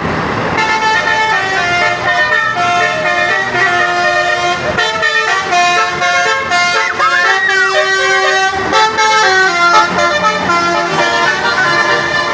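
Telolet horns on Bukit Jaya buses playing melodies: multi-tone bus horns sounding tune after tune, the notes changing in steps with no break.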